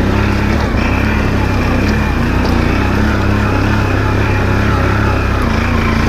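Can-Am Outlander ATV engine running steadily under load, climbing a steep, rocky trail, with slight waverings in pitch as the throttle shifts.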